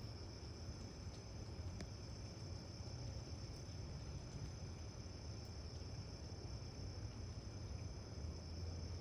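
Faint, steady, high-pitched insect chorus, like crickets, over a low rumble, with one faint click about two seconds in.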